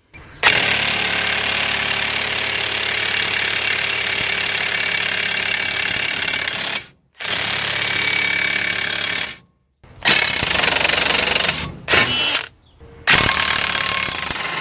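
High-torque impact wrench hammering against Torx bits locked in a bench vise, a torture test of the bits. One long run of about six seconds, then several shorter runs with brief pauses between them.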